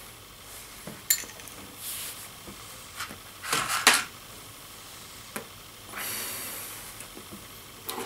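Lighting a tobacco pipe: soft draws and puffs on the pipe, with small clicks and knocks as it is handled, a short louder scrape about halfway through, and a breathy exhale lasting about a second past the middle.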